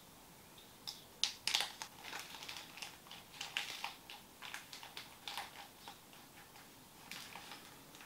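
Small plastic and silicone keypad parts being handled and fitted together by hand: irregular light clicks and short rustles.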